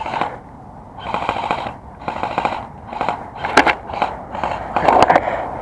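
Airsoft guns firing several short bursts of rapid clicking shots.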